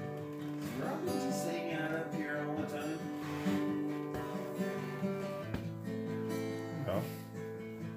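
Acoustic guitar music: chords and sustained notes, with a few sliding notes now and then.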